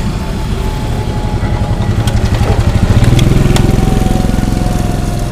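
Motorcycle engine running as it passes close by, building to its loudest about three seconds in, then easing off.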